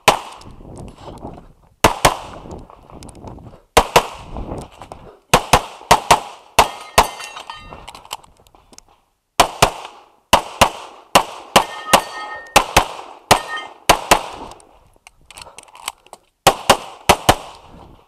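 Pistol shots fired in quick pairs, about two dozen in all, each shot with a short echo, and breaks of a second or two between strings near the middle and again towards the end.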